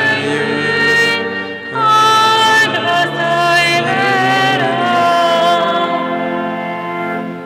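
Congregation singing a slow hymn together, accompanied by a pipe organ, in long held notes. There is a brief break between lines just under two seconds in.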